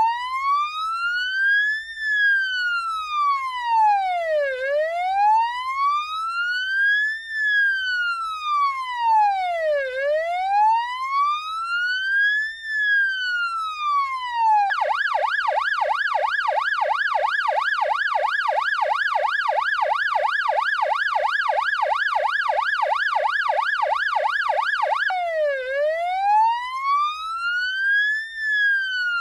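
Electronic ambulance siren sounding a slow wail, rising and falling about once every five seconds. About 15 seconds in it switches to a fast yelp of about three rises and falls a second, and some ten seconds later it returns to the slow wail.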